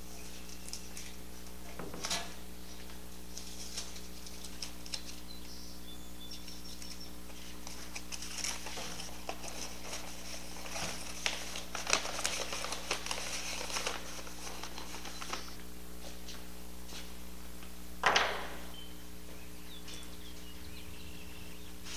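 Paper stencils and carbon paper rustling and crinkling as they are handled and peeled off a galvanized sheet-metal windmill tail fan, with small clicks and one louder sharp sound about 18 seconds in, over a steady background hum.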